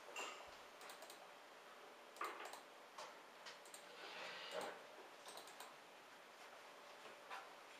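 Heavy wet snow falling: faint irregular ticks and soft taps of flakes striking close by, over a quiet steady hiss.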